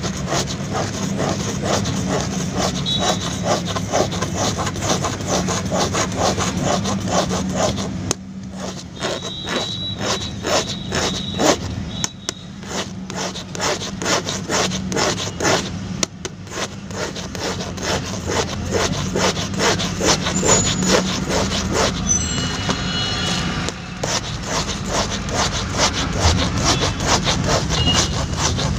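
Flat metal file rasped rapidly back and forth over the rubber of a burst inner tube, roughening the area around the tear to prepare it for patching. The strokes keep up with only brief pauses.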